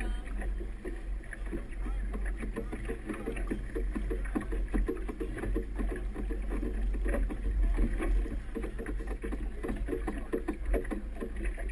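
A motorboat running slowly through calm harbour water, with a low steady rumble, water sounds around the hull and indistinct voices mixed in.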